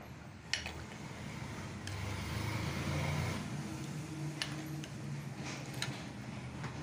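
A metal ladle moving through egg curry in a clay pot, with a few light knocks against the pot, over a low steady rumble that swells in the middle.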